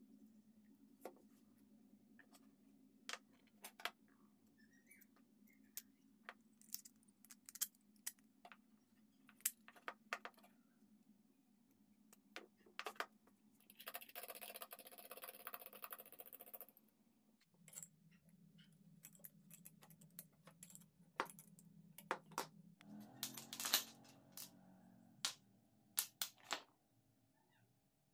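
Faint clicks, taps and knocks of small hardware being handled: a steel threaded rod, nuts and washers knocking against hardwood clamp jaws and the bench top. A rasping scrape lasts a couple of seconds about halfway through, and a faint steady hum runs underneath.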